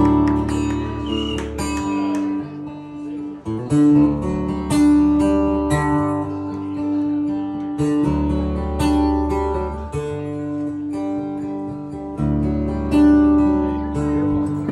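Live instrumental intro of a country song: acoustic guitar strumming steady chords, with a low bass line underneath.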